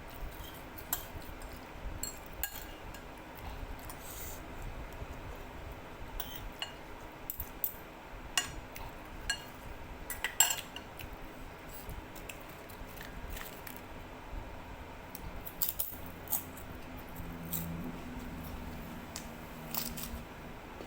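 Metal spoon and fork clinking and scraping against a bowl of noodle soup while eating, in scattered short clinks with the sharpest about halfway through, over the steady hum of an electric fan.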